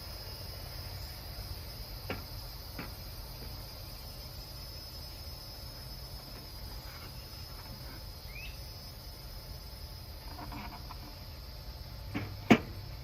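Steady high-pitched insect trilling, with a few sharp knocks scattered through, the loudest near the end.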